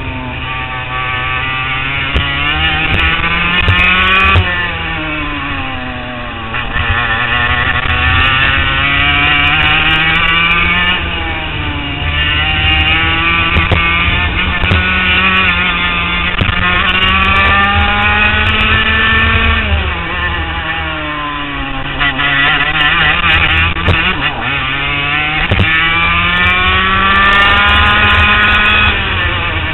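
HPV 100 racing kart engine heard onboard, its revs climbing steadily several times and falling off sharply in between.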